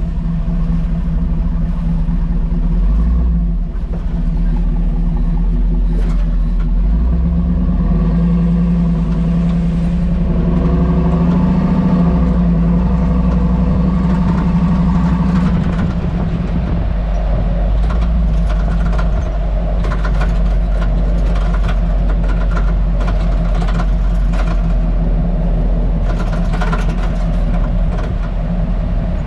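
Hummer H2 driving slowly, heard from under the truck: a steady engine and drivetrain drone. From about halfway in, a run of irregular sharp clicks and rattles comes from the rear suspension. This cracking noise has not been cured by new springs, shock absorbers, spring rubber seats, or sway-bar bushings and links, and its cause is still unknown.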